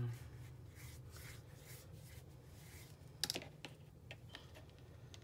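Hands rubbing and smoothing a glued fabric strip down onto a hardback book cover: faint soft rubbing and brushing, with one sharper tap a little over three seconds in.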